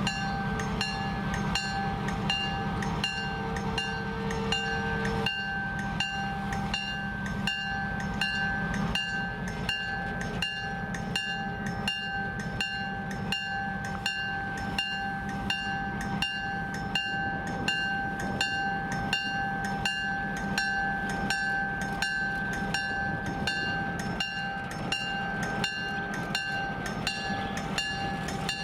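EMD GP7 diesel locomotive running, its 567B engine giving a steady low rumble. Over it, a steady ringing tone and a sharp tick about twice a second.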